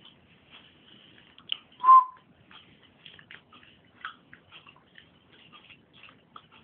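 Boston terrier puppies playing, with scattered light scratching and clicking sounds and one short, loud squeak about two seconds in.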